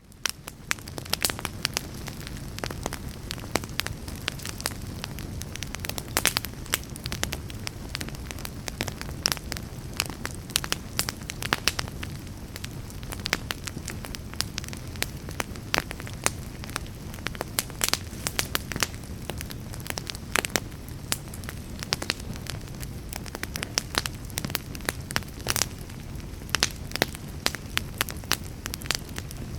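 Wood fire burning in a fireplace: frequent sharp crackles and pops at irregular intervals over a low, steady rumble of flame.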